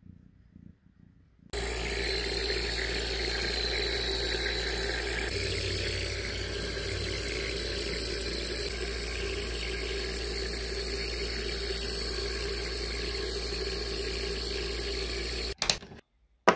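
Nebulizer air compressor running steadily: a hum with a hiss. It starts suddenly about a second and a half in and cuts off near the end.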